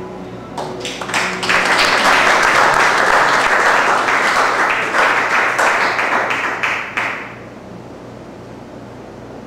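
Audience applauding, swelling about a second in and dying away after about seven seconds.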